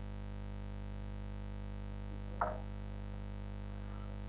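Steady low electrical mains hum on the recording, with one brief faint sound about two and a half seconds in.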